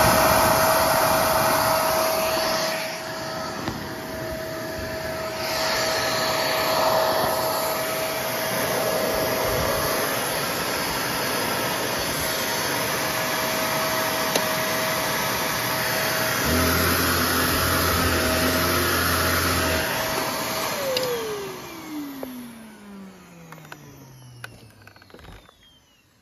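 Hoover WindTunnel Savvy upright vacuum cleaner running, its motor giving a steady whine, with a lower hum joining for a few seconds near the end. About 21 seconds in it is switched off and the whine falls steadily in pitch as the motor spins down.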